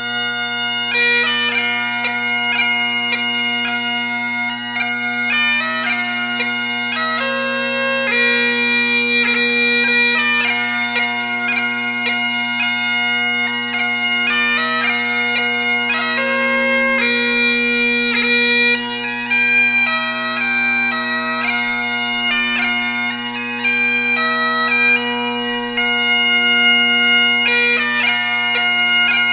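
Bagpipe music: steady low drones held under a chanter melody.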